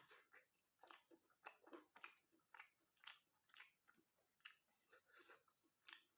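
Faint close-up chewing and biting of food, with short moist crunches about two or three a second.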